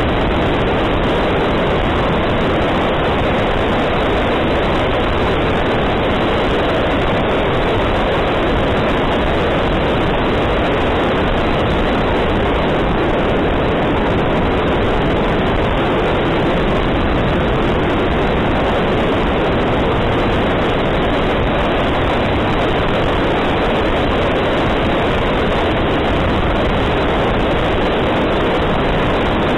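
Steady, unchanging rush of wind and electric ducted-fan noise, heard on board the E-flite F-15 RC jet in flight.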